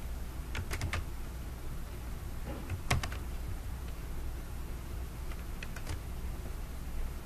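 A few sharp clicks of computer keys and mouse buttons: a quick cluster about half a second in, a louder single click near three seconds and a couple more around six seconds, over a steady low hum.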